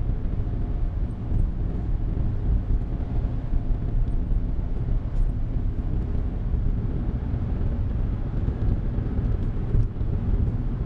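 Steady low rumble of road and engine noise heard inside a Suzuki Hustler kei car while it drives along.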